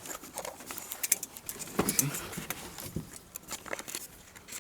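A bunch of keys jangling, with irregular metallic clicks.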